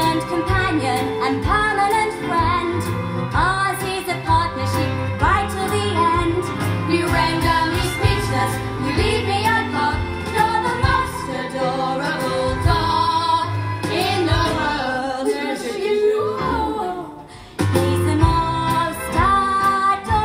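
Musical-theatre song from a cast recording: singing over a band accompaniment with a steady bass line. The music drops away for a moment near the end, then comes back in.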